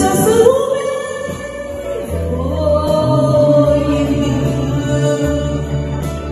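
A woman singing a pop ballad duet part into a microphone over a karaoke backing track, holding long drawn-out notes.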